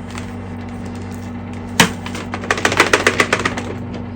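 Hoover Elite Rewind UH71013 bagless upright vacuum running with a steady hum. About two seconds in comes one sharp knock, then a quick clatter of clicks and rattles for about a second as the packed-full dust bin is taken off to be emptied.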